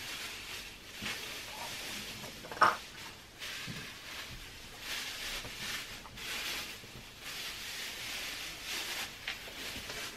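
Plastic grocery bags and food wrapping rustling and crinkling in irregular bursts as groceries are handled, with one sharp clink or knock about two and a half seconds in.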